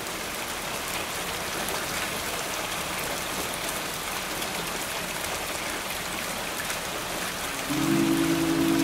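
Steady rain falling on open water around a packraft, a continuous hiss with many small drop ticks. Music with sustained tones comes in near the end.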